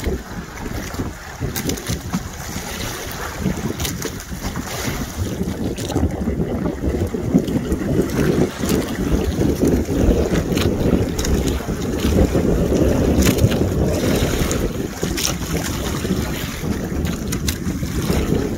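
Wind buffeting the microphone: a steady, fluctuating low rushing noise that grows a little louder about seven seconds in, with scattered faint clicks.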